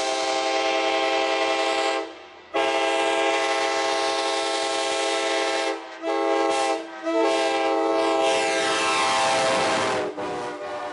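Locomotive air horn sounding a loud multi-note chord in the grade-crossing pattern: two long blasts, a short one, then a long one that drops to a quieter held tone near the end.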